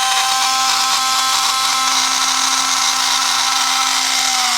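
Milwaukee M12 cordless oscillating multi-tool running at a steady high speed, a loud, even buzzing hum with an odd vibration in it, starting to wind down at the very end as it is switched off.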